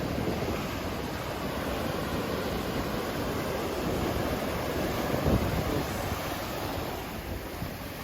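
Ocean surf breaking and washing in a continuous rush, the waves sizing up ahead of an approaching typhoon, with wind on the microphone. The low rumble swells briefly about five seconds in.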